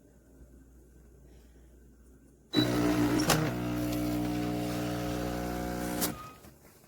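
KOTLIE multi-capsule espresso machine's pump buzzing. It starts suddenly about two and a half seconds in, runs steadily for about three and a half seconds, then cuts off.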